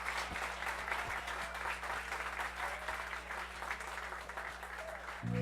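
Audience applauding, the clapping easing off slightly toward the end. Near the end, music with long held notes comes in.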